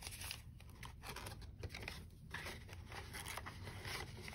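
Faint rustling of paper dollar bills and a vinyl ring binder being handled, with scattered light clicks.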